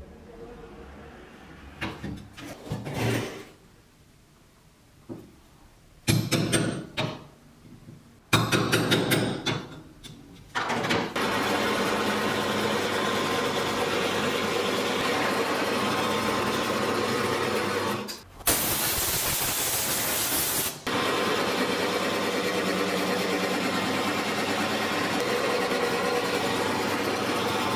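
Bench drill press running steadily, its twist bit boring into a wooden handle block held in a vise. It is preceded by about ten seconds of scattered clunks and clatter. The steady sound dips for a moment about two-thirds of the way through, then turns harsher for a couple of seconds.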